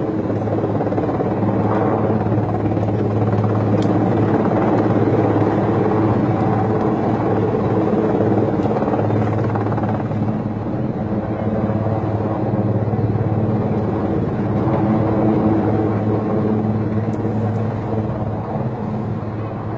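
Helicopter hovering low, its rotor and turbine engine running steadily.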